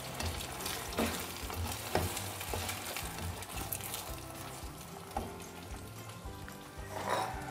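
Bread halwa mixture of bread soaked in milk, sugar and egg sizzling in hot oil in a non-stick frying pan as it is stirred with a plastic slotted spatula, with a few sharp knocks of the spatula against the pan.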